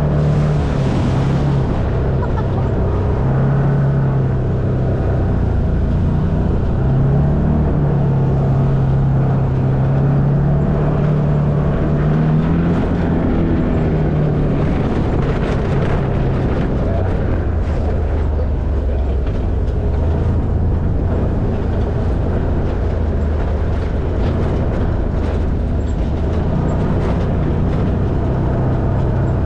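Side-by-side UTV engine running under way on a rough dirt trail, its pitch rising and falling with the throttle during the first half. Short knocks and rattles from the vehicle jolting over bumps come more often in the second half.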